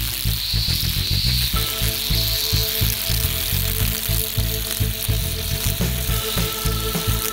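Background music with a steady beat, with a hiss in the highs and held tones entering about a second and a half in.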